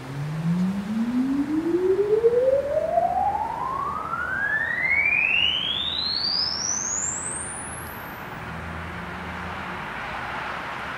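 A single clean tone gliding steadily upward in pitch, from a low hum to a shrill whine that climbs out of hearing about eight seconds in, over a steady background rumble.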